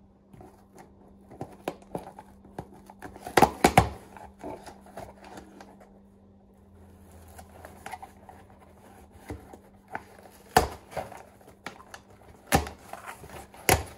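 A cardboard shipping box being torn open by hand: the cardboard rustles and scrapes, with a burst of sharp tearing cracks a few seconds in and single loud snaps of the flaps near the end.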